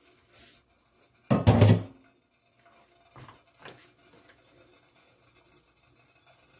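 A stainless steel pot lid clatters loudly as it is set down, a quick cluster of metal strikes with a short ring, about a second in. Two light knocks follow, from chopsticks against the steamer pot.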